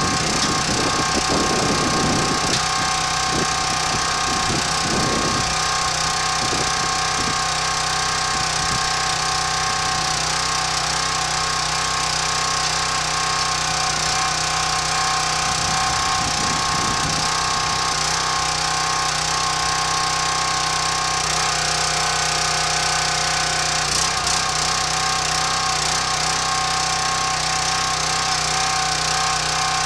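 Small gas engine of a Countyline 25-ton hydraulic log splitter running steadily, with a few short knocks near the start and again about halfway through.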